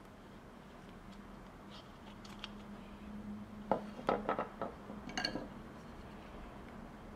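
Short sharp clicks and scrapes of a carving tool working wood, in a quick cluster a little past the middle and a brief second one a second later, over a faint steady low hum.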